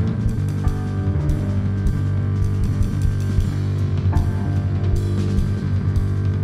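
Instrumental passage of a live jazz-pop trio: a Yamaha Reface CP electric-piano keyboard playing chords over electric bass and a drum kit, with steady drum hits and sustained bass notes.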